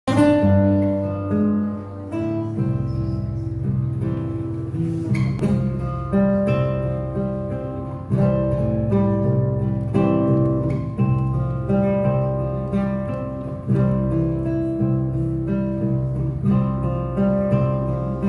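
Live acoustic guitar playing an instrumental introduction, with held chords that change every two seconds or so.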